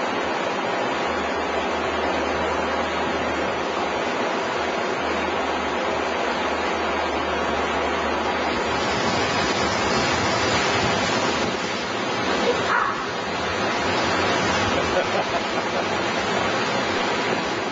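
Whitewater rushing through a river rapid: a steady, dense wash of fast water heard from close by.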